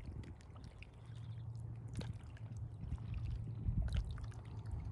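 Steady low hum of a distant motorboat engine across the lake, over light water sounds at the shore, with a couple of faint clicks about two and four seconds in.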